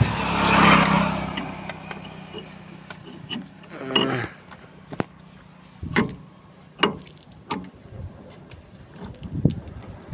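New axle and bearing being fitted into an e-rickshaw's rear axle housing: a scraping rush of metal in the first second or so, then a series of separate sharp metal knocks and clicks as the part is worked into place.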